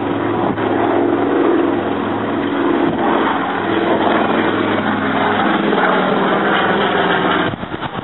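Propeller aircraft engines droning steadily, dipping briefly near the end.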